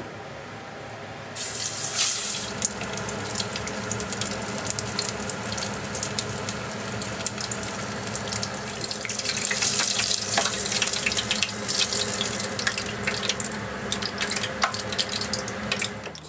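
Battered tempura deep-frying in a pot of hot oil: a dense sizzle full of small crackling pops. It starts suddenly about a second in, is loudest around the middle and fades out near the end.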